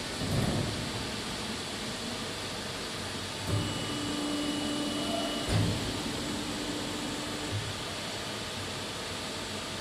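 EPS foam pattern-embossing press running with a steady mechanical hum. Short knocks come about half a second, three and a half, five and a half and seven and a half seconds in, and a steadier, higher hum runs between the second and the last knock.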